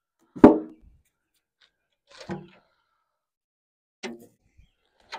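Short metallic clanks and knocks from the steel firebox of an offset smoker as its door is opened and split wood is handled to add another log. There are about four separate knocks, and the first, about half a second in, is the loudest, with a brief ring.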